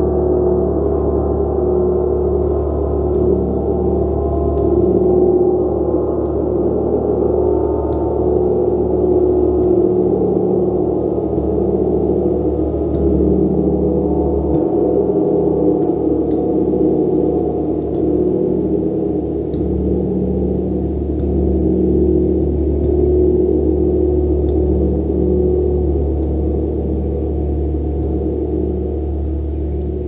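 A 36-inch gong played continuously: a dense, sustained wash of many overlapping low tones that swells and eases gently, with no single sharp strike standing out.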